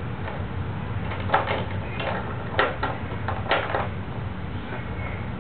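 A handful of short plastic knocks and clacks as a baby grabs and handles the bead column on an activity saucer's toy post, between about one and four seconds in, over a steady low hum.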